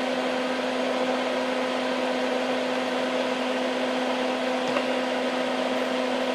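Hakko soldering smoke absorber's fan running with a steady whirring hum, pulling away the wood-burning fumes. One small tick just under five seconds in.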